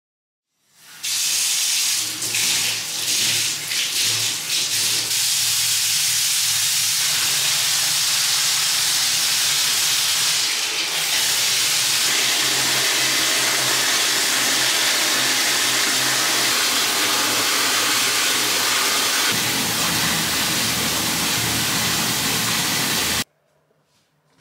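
Hot water pouring from a bath tap into a freestanding bathtub as it fills: a steady rush of running, splashing water that cuts off suddenly near the end.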